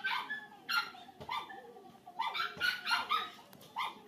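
A dog barking repeatedly in quick, high-pitched bursts.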